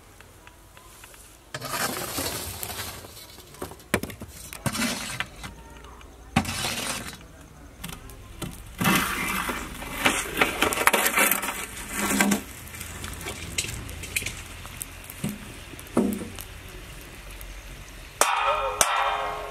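Charcoal clinking and sliding and metal scraping as a steel lid heaped with hot charcoal is lifted off a cooking pot, in several noisy bursts with sharp clicks through the first two-thirds, and another burst near the end.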